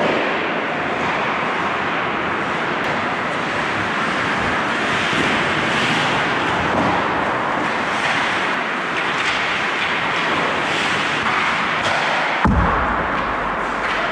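Ice hockey play on an indoor rink: a steady wash of skates scraping the ice, with scattered clicks of sticks and puck. A single heavy thump comes about twelve and a half seconds in.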